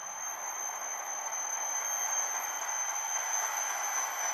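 Spirit box radio static: a steady white-noise hiss played through the Portal Box speaker, with a steady high-pitched whine over it that slowly grows a little louder. The investigators put this constant squeal down to too much reverb on the Portal Box.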